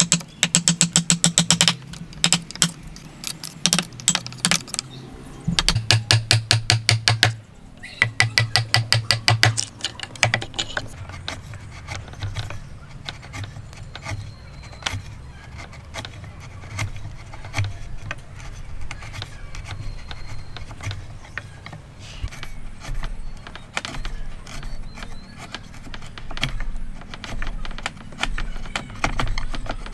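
A steel chisel cutting into a timber beam: three runs of rapid, evenly spaced strikes in the first ten seconds, then softer irregular ticking and scraping as the chisel pares wood from the faces of the joint sockets.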